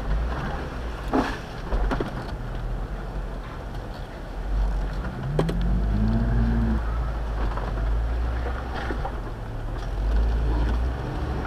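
Jeep engine running at low speed while crawling over rocks, a steady low rumble, with the revs rising briefly about five seconds in and holding for about a second. A few sharp knocks sound along the way.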